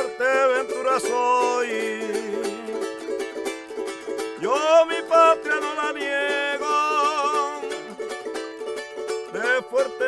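A man singing with vibrato to his own strummed timple, the small Canary Islands guitar-like instrument with four or five strings.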